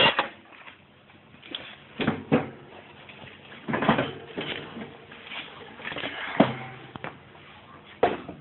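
Scattered knocks and clunks of heavy metal differential parts being handled and moved, with camera handling noise.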